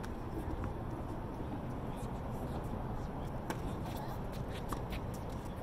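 Steady low rumble of outdoor background noise with faint, scattered sharp ticks from a doubles tennis rally on a hard court.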